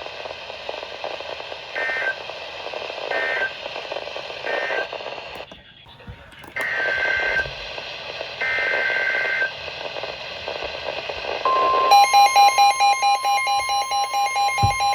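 Weather radio receiver hissing between broadcasts, with several short warbling data bursts of an alert header. About eleven seconds in, the steady warning alarm tone starts, then the receiver's own loud alert beeps in a fast pulsing pattern, signalling that a new warning has been received.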